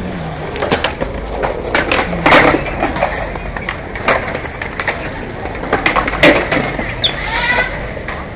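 Skateboards clacking and rolling on concrete: a string of sharp board pops and landings, the loudest about two seconds in and again about six seconds in, over the steady rumble of wheels.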